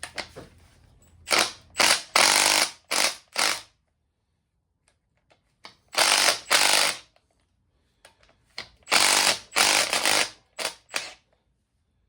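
A ratchet wrench loosening the cylinder head bolts on a Kubota V2203 diesel, in short bursts: three groups of a few bursts each, with pauses between them.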